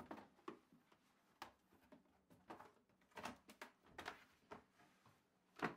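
Faint clicks, taps and rustles of the Foldio 3 folding light tent's panels being folded shut by hand, with a sharper knock near the end as a panel comes down.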